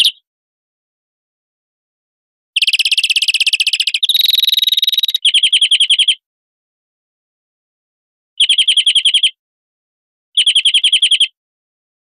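European greenfinch song: a series of rapid trills, each about a second long, with notes repeated about ten times a second, followed by pauses. Two longer buzzy trilled phrases come first, then three shorter trills spaced about two seconds apart.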